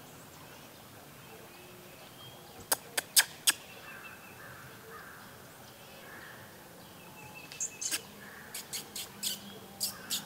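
Four sharp clicks close together about three seconds in, then a quicker run of sharp clicks in the last few seconds, over faint calls.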